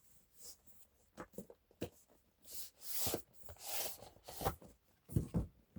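Keyboard box and packaging being handled: light clicks and taps, a few soft sliding swishes, then a couple of low thumps near the end.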